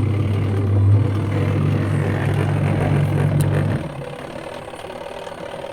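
Mini portable washing machine's wash motor running with a steady low hum, then stopping a little under four seconds in, the pause of the timer-driven wash cycle.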